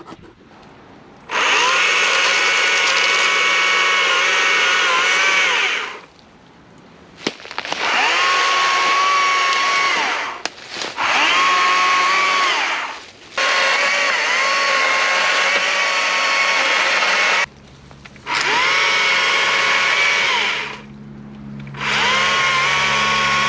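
Stihl MSA 140 C battery chainsaw cutting brush in about six bursts of a few seconds each: a steady high motor whine that starts and stops abruptly, its pitch sagging briefly as the chain bites into the branches.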